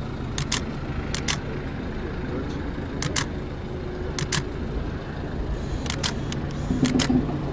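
Steady low rumble of a vehicle heard from inside its cabin, broken by six sharp double clicks at irregular intervals.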